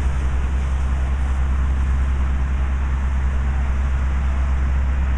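A large vehicle engine running steadily: a deep, even rumble, with an even hiss above it.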